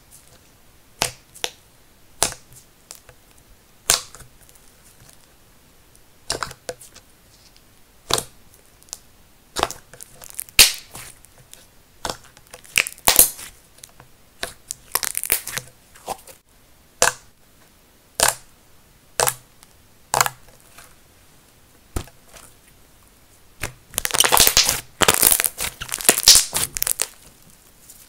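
Fingers pressing into a medium-dense inflated slime, making sharp air-bubble pops about once a second, then a dense run of crackling pops near the end.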